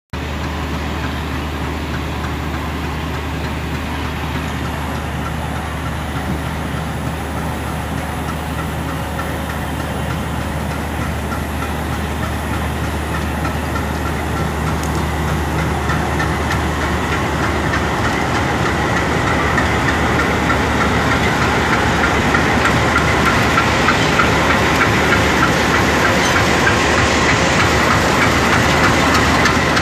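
Twin WDM3A diesel locomotives with ALCo engines give a steady low drone. From about halfway, rattling wheels and rising noise join in as the train rolls past, growing louder toward the end.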